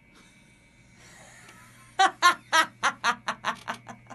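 A woman breaks into laughter about two seconds in: a run of about ten quick 'ha's that come closer together and fade.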